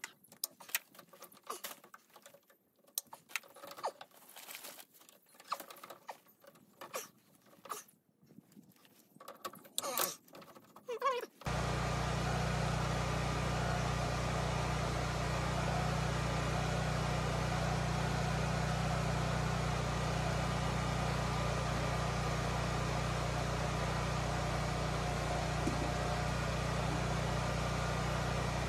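Scattered clicks, knocks and rustles of hands working plastic PEX tubing and tools. A little over ten seconds in, this switches suddenly to a steady, even noise with a strong low rumble that runs on unchanged.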